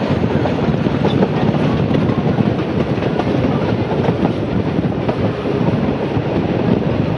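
Heritage passenger train running along narrow-gauge track, heard from on board a carriage: a steady rumble of wheels and coachwork with faint clicks from the rail joints.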